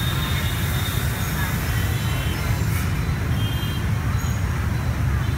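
Steady din of motorbike and scooter traffic with a few cars: a low engine rumble under a haze of road noise, with a few faint, short high tones now and then.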